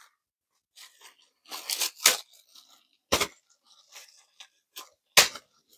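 Clear plastic film packaging being pulled and torn open by hand: irregular crinkling, with three sharper crackles about two, three and five seconds in. The wrap is a little tough to get into.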